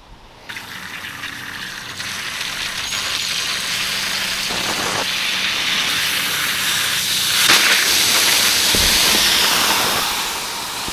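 Water under full supply pressure spraying and hissing out of an outdoor irrigation standpipe as its valve is changed with the water still on. The hiss builds over the first couple of seconds and stays loud and steady.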